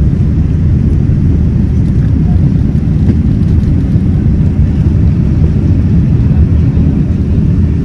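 Steady, loud low rumble of an airliner cabin in flight, the jet engines and airflow droning without change.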